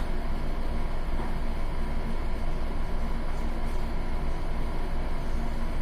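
Steady low mechanical hum and rumble with a constant faint tone, unchanging throughout.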